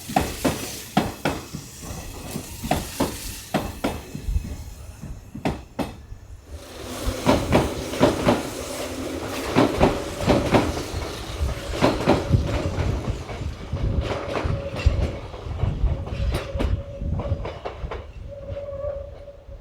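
Electric commuter trains running on the Hanshin Main Line, wheels clacking in quick runs over rail joints. After a short lull about six seconds in, a louder passage follows with a steady tone over the clacking, fading near the end.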